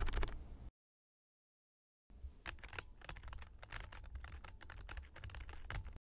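Computer keyboard typing: a quick run of key clicks that stops within the first second, then about two seconds in a steady stream of rapid key clicks that cuts off abruptly near the end.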